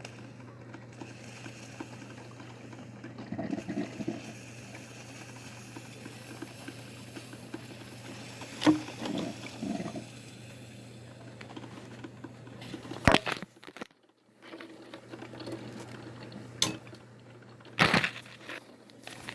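Broken, leaking coffee machine running with a steady hum and a wash of water sounds, broken by several sharp clicks. The hum cuts out for a moment about two-thirds of the way through, then comes back.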